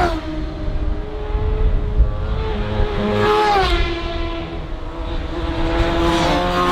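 Classic superbike racing motorcycles at full throttle, a pair climbing toward the camera and the leading bike passing close near the end. The engine note falls a few times, most sharply as that bike goes by.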